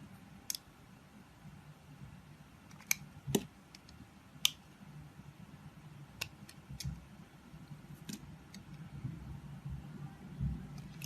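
Knife cutting into a bar of soap: scattered sharp, crisp clicks and snaps, about seven of them, the loudest a little after three seconds in, over a faint low hum.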